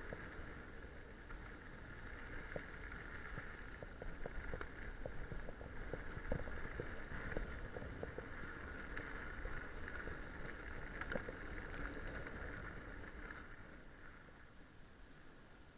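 Mountain bike rolling fast over a gravel forest track: steady tyre noise with many small crunches and rattles over a low wind rumble. It grows quieter near the end as the ride moves onto smooth pavement.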